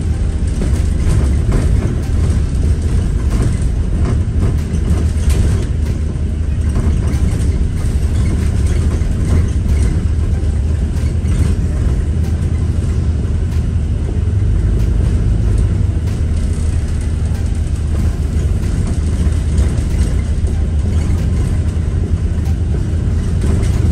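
Steady low drone of a London bus's engine and running gear heard from inside the cabin, with occasional faint clicks.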